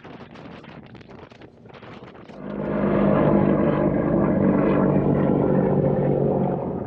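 A boat engine comes up to power about two seconds in and runs with a loud, steady note as the boat gets under way. The note eases slightly near the end.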